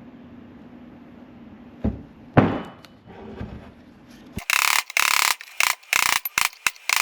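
Metal hammering as the old outer wheel bearing race is driven out of a C10 front hub from the backside. Two knocks, then from about halfway a quick run of loud, short bursts of strikes.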